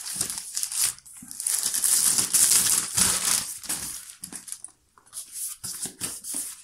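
Clear plastic shrink-wrap crinkling and rustling as it is torn and peeled off a cardboard gimbal box, busiest in the middle, with a few quieter crackles near the end.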